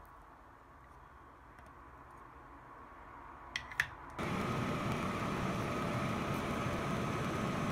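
Quiet room tone with two small clicks, then a little past halfway a steady fan-like whooshing noise sets in suddenly and runs on evenly.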